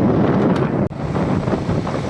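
Wind buffeting the microphone, a loud, steady rumbling rush that briefly cuts out just under a second in.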